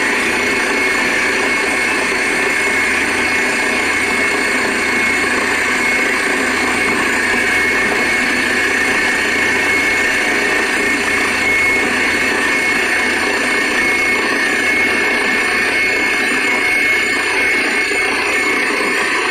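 Borewell drilling rig running steadily while drilling into the ground: a loud, even mechanical noise with a thin high whine held throughout.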